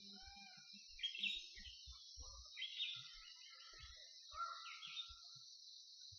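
Birds calling over a steady high-pitched insect drone, with three short, falling calls that stand out about a second in, near the middle and near the end.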